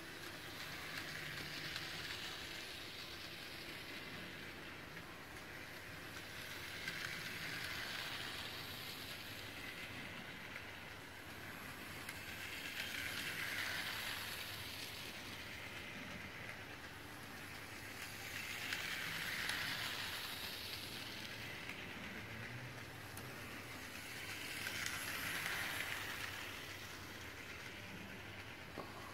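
Toy train set running round a small loop of track, its running noise swelling each time the locomotive passes close, about every six seconds.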